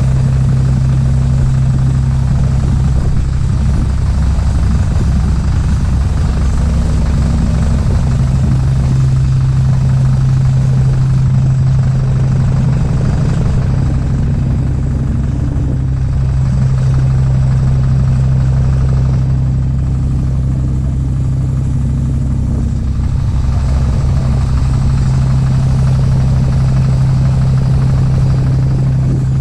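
Small boat's engine running at a steady speed, a constant low hum, with a steady hiss of water and wind over it.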